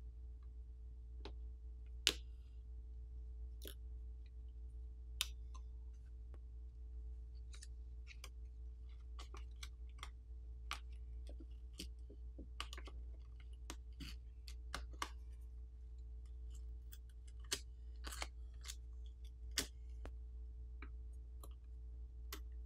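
Faint, scattered clicks and crinkles as a plastic pry pick works at a phone's small internal brackets and peels back thin graphite film, over a steady low hum.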